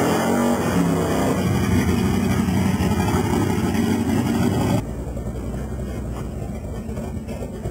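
Drag car's engine revving hard in a burnout, tyres spinning, on worn camcorder audio. About five seconds in it cuts abruptly to a quieter, lower engine rumble heard from inside a car.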